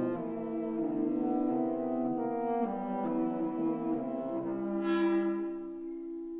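Contemporary orchestral music with the brass prominent, holding dense, slowly shifting chords. About five seconds in the sound swells brighter, then thins to a single low note held on.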